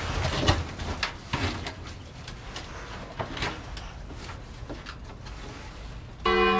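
Irregular knocks, scrapes and clicks of something being handled, spaced unevenly and loudest in the first second and a half. Near the end a sustained, bell-like ringing chord comes in abruptly.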